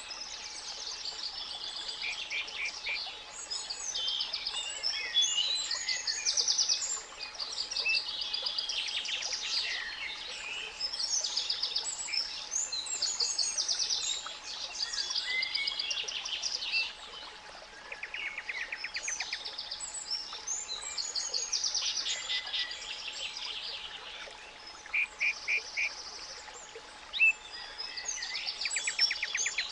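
A chorus of songbirds singing, many quick trills and chirps overlapping, over a faint steady 852 Hz pure tone.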